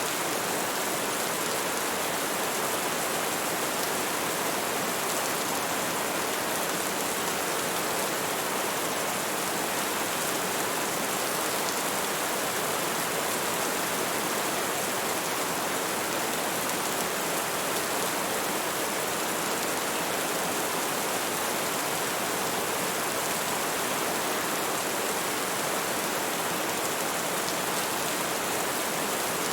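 Steady rain falling, an even hiss of many drops with no distinct individual hits.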